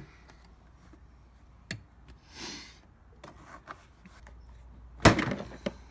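Small clicks and rubbing from tools and plastic parts being handled at a car door's interior panel, with a short scraping swish a little after two seconds and one loud sharp click about five seconds in.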